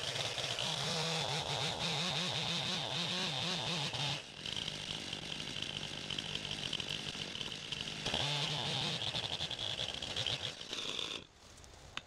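Gasoline chainsaw at full throttle cutting through a fallen tree trunk, its engine note wavering under load. It eases off briefly about four seconds in, runs on, and drops away about a second before the end.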